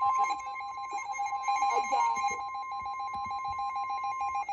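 NOAA Weather Radio warning alarm tone, one steady tone at about 1050 Hz that cuts off shortly before the warning message begins, signalling an emergency broadcast. Alongside it, a lower tone beeps rapidly and without a break.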